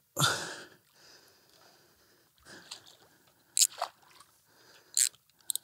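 Water splashing as a hooked carp thrashes in shallow water, with a loud splash just after the start and a few short, sharp splashes later on. A few quick clicks come near the end.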